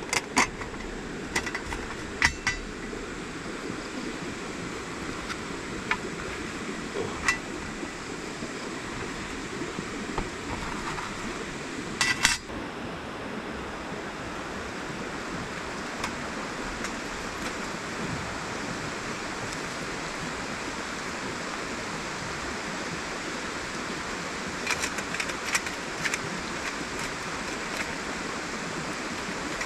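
Steady rushing of a river flowing, with scattered sharp clicks and clinks, a quick cluster of them about twelve seconds in and a few more near the end.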